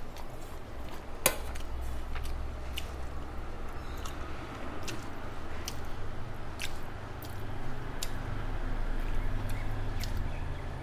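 Close-up sounds of a person eating by hand: fingers mixing and scraping food on a steel plate, then chewing, with scattered sharp mouth smacks and clicks. The loudest click comes about a second in. A low steady hum runs underneath.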